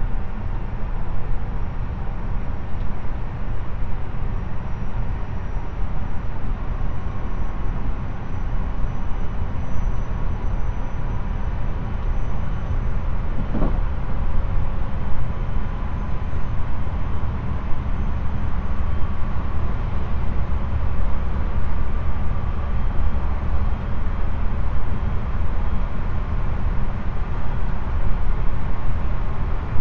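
Running noise inside the motor car of a JR Central 373 series electric train: a continuous low rumble of wheels on rail and running gear, with a faint steady motor hum. The rumble grows heavier a little after halfway.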